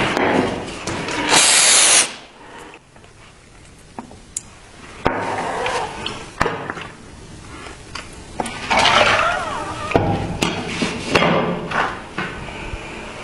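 Workshop rubbing and scraping on a rusty knife blade during rust removal and sanding, in loud spells broken by a quieter stretch with sharp clicks and knocks of tools being handled.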